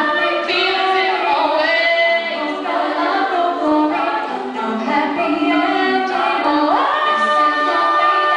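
All-female a cappella group singing into microphones: several voices hold sustained harmonies under a lead line. About two-thirds of the way through, a voice slides up and holds a high note.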